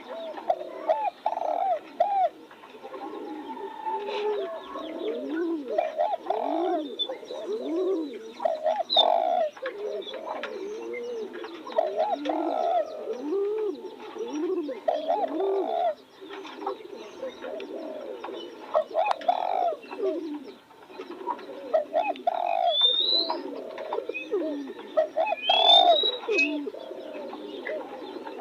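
Spotted doves cooing over and over, their low, rounded coos overlapping one another. A few short, higher chirps come in near the end.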